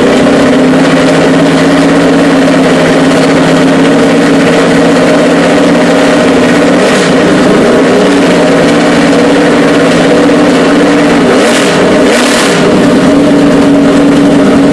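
The V8 engine of the #11 FedEx Toyota NASCAR Cup car running loud and steady at idle, with two quick throttle blips about three-quarters of the way through.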